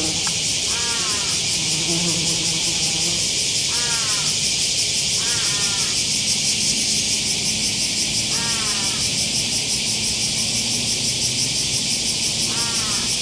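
A loud, steady chorus of insects with a fine, fast pulsing texture, with a bird giving a short, falling call about five times over it.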